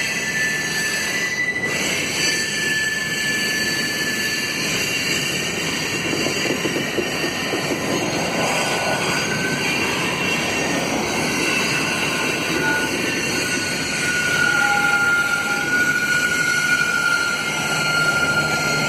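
Wheels of a double-stack container train squealing as the cars roll around a curve: several high, steady squeal tones that come and go and shift in pitch, over the continuous rumble of the rolling cars. The squeal comes from the wheels straining against the rails through the curve.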